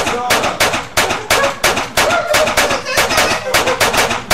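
A handgun fired over and over in quick succession, about three shots a second, each with a short ringing tail, with a voice sounding between the shots.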